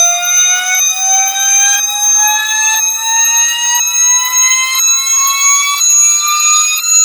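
Loud alarm ringtone: a siren-like tone with many overtones that rises slowly and steadily in pitch, pulsing about once a second.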